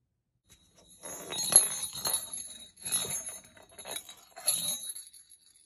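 A small jingle bell on a kitten's ribbon toy jingling in about five irregular shakes as the toy is batted around, starting about a second in, with light scuffling under the ringing.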